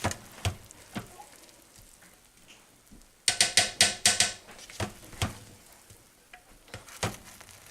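Utensil stirring rice in a Ninja slow cooker pot, scraping and knocking against the pot in scattered strokes, with a quick flurry of scrapes about three seconds in.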